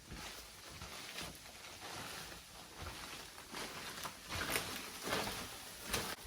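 Footsteps walking across a floor: soft thuds at an even walking pace, over a faint steady hiss.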